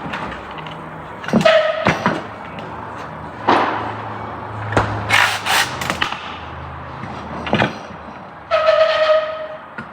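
Hand tools knocking and clinking against metal parts while mounting nuts are set and tightened, with a short metallic ring twice, the second lasting about a second near the end.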